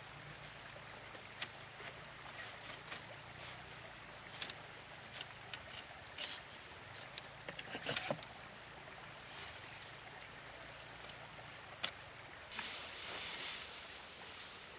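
Light clicks and taps of thin bamboo strips being handled and tied into a lattice, with a few sharper clicks among them. Near the end this gives way suddenly to the dense rustle of a bundle of dry straw being carried.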